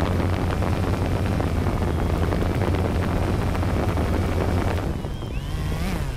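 DJI Phantom 2 quadcopter's motors and propellers running, a steady buzzing rush heard close up with wind on the microphone. About five seconds in it gets a little quieter and the motor pitch wavers up and down as the drone is grabbed by hand.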